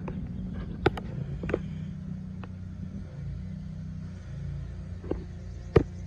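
New Holland 555E backhoe loader's diesel engine idling steadily, with a few sharp clicks and a louder knock near the end.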